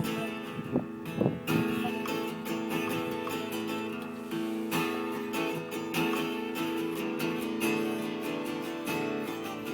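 Acoustic guitar being strummed, with chords ringing on between repeated strokes.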